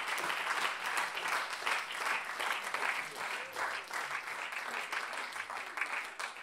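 Audience applauding: dense clapping that eases off slightly near the end.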